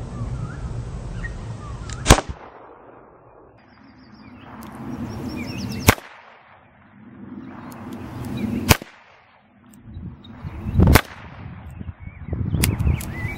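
Four shots from a Rossi Model 13 small-frame .22 double-action revolver, each a sharp crack, spaced about two to four seconds apart.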